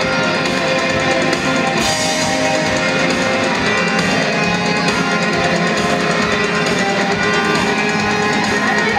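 Loud, steady backing music with guitar and drums.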